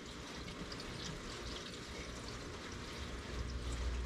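Engine coolant pouring from a jug into the truck's radiator, a steady trickling pour. A low rumble comes in near the end.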